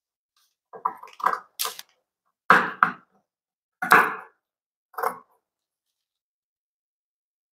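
Tailoring scissors cutting cloth together with a paper pattern. A quick run of small snips comes about a second in, followed by four louder single cuts spaced about a second apart.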